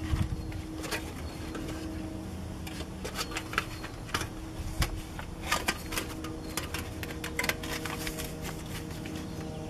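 Foil-backed ceramic fabric insulation crinkling and crackling in irregular clicks as it is cut with scissors and handled around a metal vent pipe, over a steady low hum.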